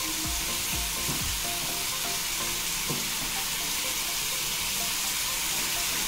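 Marinated chicken pieces sizzling steadily as they fry in butter in a nonstick pan. A wooden spatula turns them over, giving a few soft knocks against the pan in the first second and a half.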